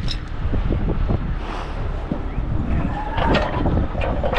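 Heavy rotator tow truck's diesel engine running at idle, a steady low rumble. Metal chain clinks about three seconds in.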